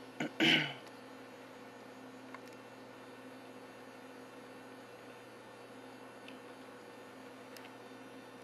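A steady low electrical hum with a faint hiss, after a brief spoken word right at the start.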